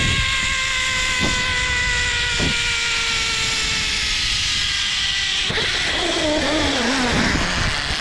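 Zipline trolley pulleys running along the steel cable, giving a high whine that falls slowly in pitch, over a steady rushing noise. About five and a half seconds in the whine gives way to a lower, wavering tone.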